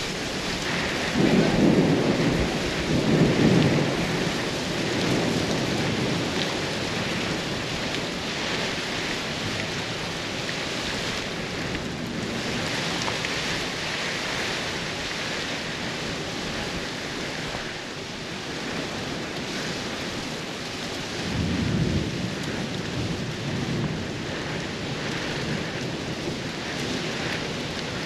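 Heavy rain falling steadily in a thunderstorm, with low rumbles of thunder swelling twice: a second or so in and again about twenty seconds in.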